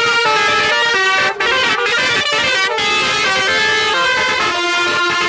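Telolet horn, a multi-note musical vehicle horn, playing a tune: a string of loud held notes that step from one pitch to the next every fraction of a second.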